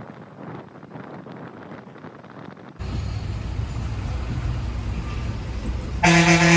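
Road hiss inside a moving car, then a vehicle engine running with a low rumble. Near the end a single short, loud vehicle horn blast.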